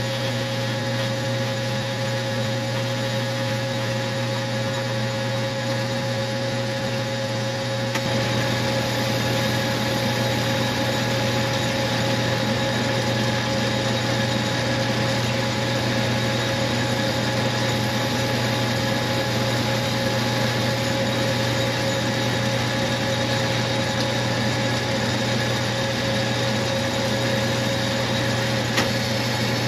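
Metal lathe running steadily, its chuck spinning a small brass workpiece. About eight seconds in the sound grows a little louder and fuller.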